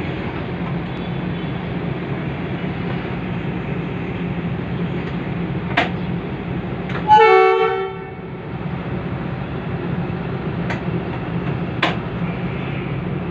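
Diesel locomotive engine idling with a steady low hum while the train stands, with one short horn blast about seven seconds in, the loudest sound. Two short sharp clicks come a second before the horn and again near the end.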